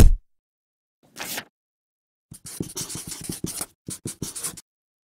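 A heavy thump at the very start, a brief rustle about a second in, then a marker pen scratching across paper in quick strokes with short breaks for about two seconds.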